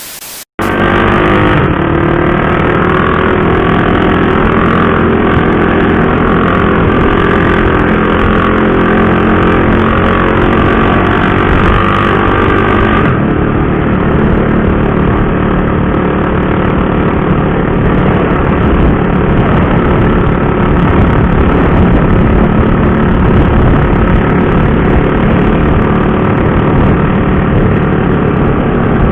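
KTM RC 390's single-cylinder engine running steadily under way, cutting in loudly about half a second in.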